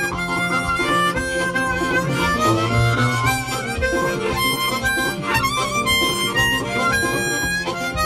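Background music led by a harmonica, its notes now and then sliding up or down in pitch.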